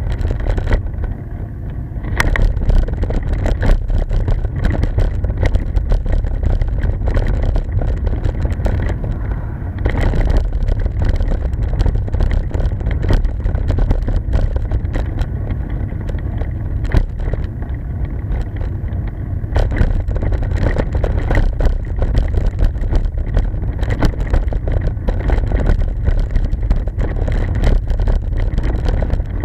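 Heavy wind rumble on the microphone of a bicycle-mounted camera, broken by frequent knocks and rattles as it jolts over the rough, patched road shoulder.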